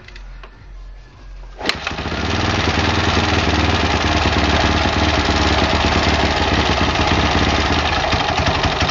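Husqvarna SM 610 supermoto's single-cylinder four-stroke engine kicked over and catching about two seconds in with a sharp click, then running steadily.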